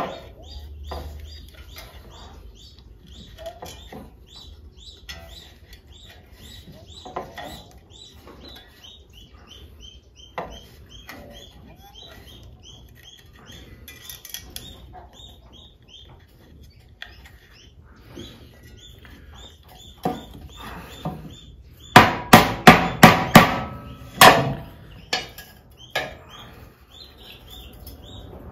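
Hammer striking a wooden beehive frame while it is being wired: a quick run of about six sharp strikes about three-quarters of the way through, with a few lighter knocks around it. Before that, small handling clicks and faint small birds chirping steadily.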